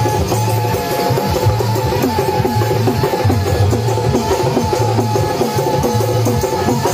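Loud music led by drums and percussion beating a steady, repeating rhythm over sustained pitched notes.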